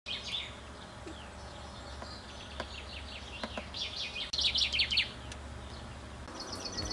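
A small songbird singing in a tree: scattered chirps and short falling notes, then a loud fast run of falling notes about four and a half seconds in.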